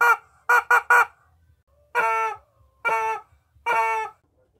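Rubber chicken toy squeezed: four short, quick squawks in the first second, then three longer squawks about a second apart.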